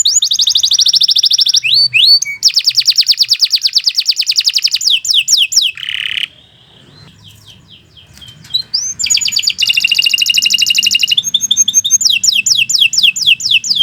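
Domestic canary singing long, rapid trills of quickly repeated high notes, one tour after another. It breaks off for about two seconds a little before the middle, then resumes.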